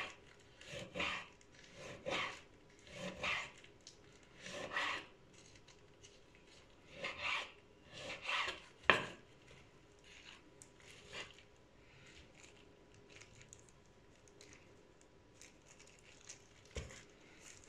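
Chef's knife slicing raw beef on a wooden cutting board: rasping strokes about one a second, with a sharp knock of the blade on the board about nine seconds in. The second half is quieter, with faint taps and handling.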